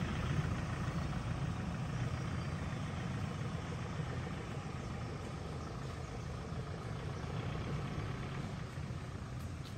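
A car's engine running steadily with a low rumble that slowly grows quieter.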